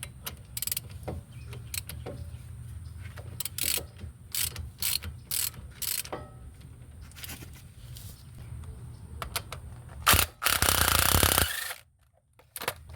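Irregular metallic clicks and ratcheting of hand tools at a car's front brake caliper, as the caliper is clamped to push the piston back. About ten seconds in comes a louder burst of noise lasting about a second and a half.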